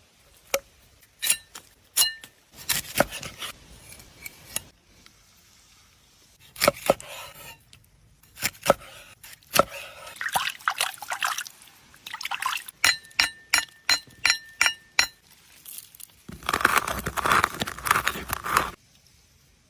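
Cooking handling sounds: sharp ringing clinks of glass or kitchenware, including a quick run of about four clinks a second around the middle, with stretches of liquid being poured in between and a longer pour near the end.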